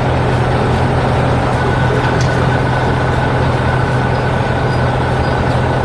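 Heavy construction machine engine running steadily: a deep, even hum with a dense rumble over it and no change in pitch.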